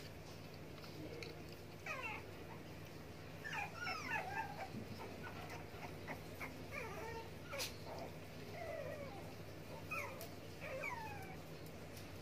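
Puppies whimpering and yipping in play: a string of short, high, squeaky calls that slide up and down in pitch, busiest about three to five seconds in.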